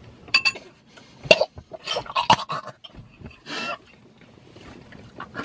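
Two young women's stifled laughter behind their hands, coming in short bursts with breathy, cough-like catches.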